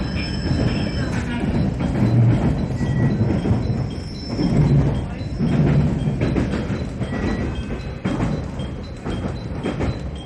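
Music with mallet-like percussion, over the low rumble of a train running.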